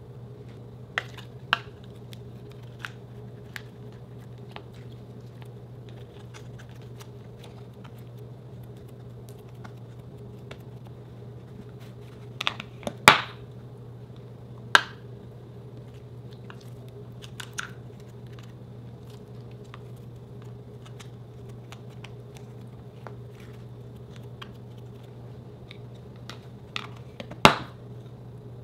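A closed plastic slime tub handled in the hands: scattered light clicks and taps of the plastic lid and container, with a few louder knocks near the middle and one near the end, over a steady low hum.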